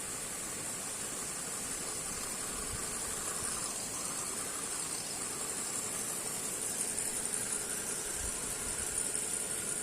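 Small electric motor and gears of an RC crawler whirring steadily, with a high hiss over it.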